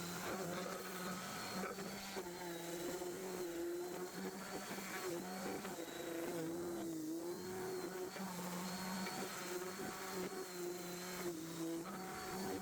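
Electric motor of a woodworking machine running steadily, a continuous hum whose pitch wavers slightly.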